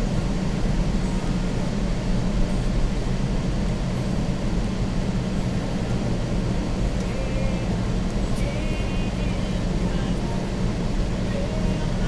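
Steady drone of a car's engine and tyres on the road, heard from inside the cabin while driving.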